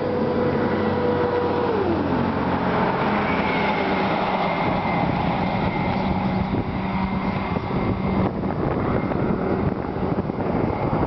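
2008 Dodge Ram 3500's Cummins 6.7-litre turbo diesel running. About two seconds in its pitch drops as the revs fall, and it then idles steadily.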